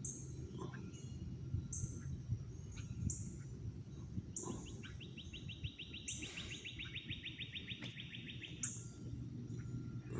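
Wild birds calling: short high chirps that sweep downward, repeated every second or so, and, from about four seconds in, one long dry trill lasting about four seconds. A steady low rumble runs underneath.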